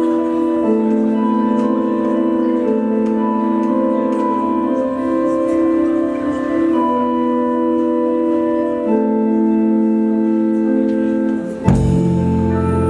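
Live band music led by sustained organ-style keyboard chords that change every few seconds. Near the end a sharp hit brings in a low bass line.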